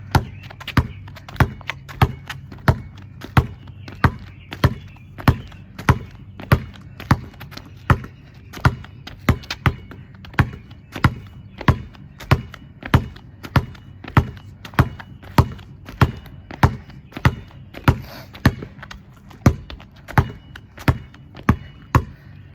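Basketball being dribbled in a scissors ball-handling drill, bouncing sharply in a steady rhythm of about three bounces every two seconds.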